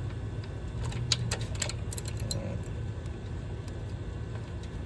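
Metal clinks and clicks of a wrench on the serpentine belt tensioner pulley, a handful in the first half, over a steady low hum.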